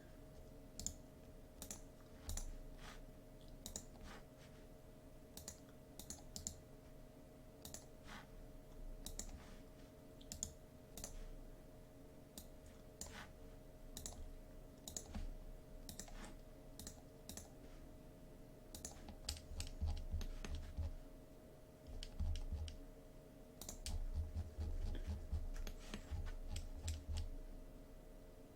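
Scattered computer mouse clicks and keyboard taps over a steady low electrical hum. In the last third, bursts of dull low thumps come in as well.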